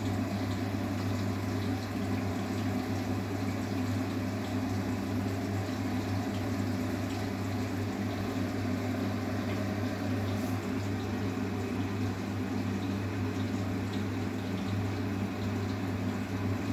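Arçelik 9120M washing machine running with water in it: a steady low hum under an even wash of water noise.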